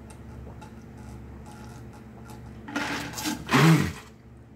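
A man gulping water from a large plastic jug, then lowering it with a loud breathy exhale and a short voiced 'ahh' of refreshment about three seconds in.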